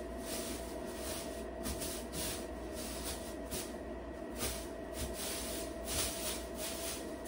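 Plastic liner and sauna-blanket fabric rustling in repeated short swishes as they are smoothed and spread out by hand, over a faint steady hum.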